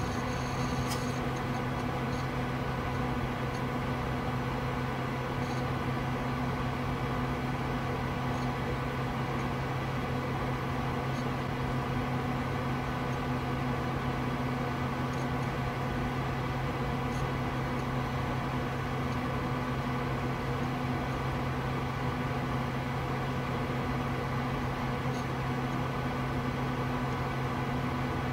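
Steady low machine hum with hiss, unchanging throughout, with a few faint clicks now and then.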